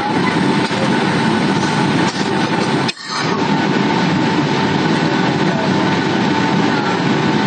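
Airliner cabin noise: the steady rush of engines and airflow, with a thin steady whine above it. The sound cuts out for a moment about three seconds in, then carries on.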